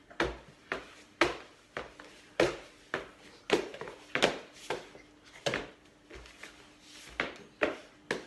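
Hands and trainers knocking on a wooden floor as an adult crawls on all fours, about two knocks a second in an uneven rhythm.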